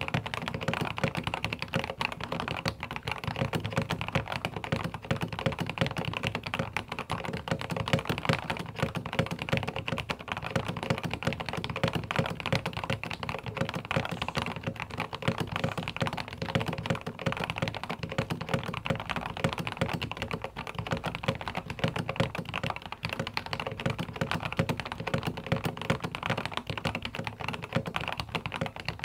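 Fast, continuous typing on a tenkeyless mechanical keyboard: a dense, unbroken stream of keystrokes.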